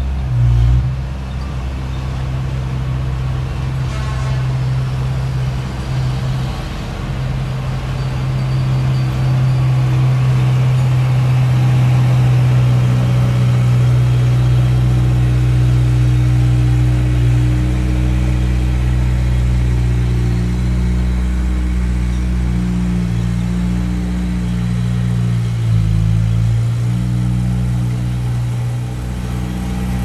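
Diesel engine of a small Komatsu crawler bulldozer running steadily under load as it pushes sand, with a dump truck's engine running as it tips its load. The engine note changes a little as the dozer works, dipping briefly and recovering near the end.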